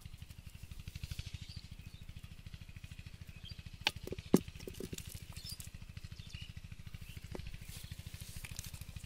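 Scattered sharp clicks and knocks from handling a cast net and its catch by hand, the two loudest about four seconds in, over a steady, fast low throbbing.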